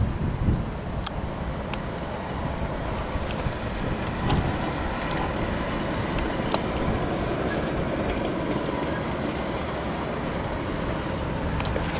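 Ford E-series van driving slowly past while towing two ATVs on a tow bar: steady engine and tyre rumble, with sharp clicks and rattles here and there.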